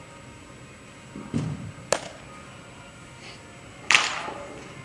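A baseball smacking sharply twice, about two seconds apart, the second the loudest and echoing in a large indoor hall, with a duller thump just before the first.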